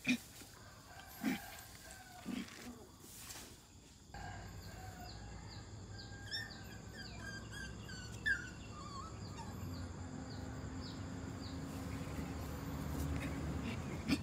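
Two puppies play-fighting, with short growls and yelps in the first few seconds. After about four seconds a steady low background noise sets in, with a run of short high chirps over it and one sharp yelp near the middle.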